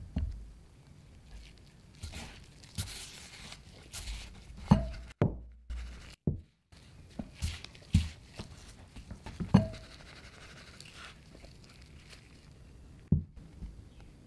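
Chicken pieces being coated by hand, lifted from wet batter and pressed into a bowl of flour: soft rustling and scuffing broken by irregular thumps and knocks, the loudest a few near the middle, with two brief dead gaps.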